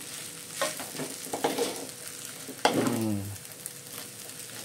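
Fried noodles with carrot sizzling in a wide wok as a spatula stirs and tosses them, with a steady hiss and a few sharp scrapes and knocks of the spatula on the pan. A brief low voice sounds about three seconds in.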